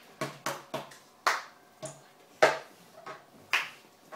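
Cup-rhythm percussion: hand claps, three quick taps on a desk and a plastic cup knocked down onto the desktop. About eight sharp hits in an uneven, repeating rhythm.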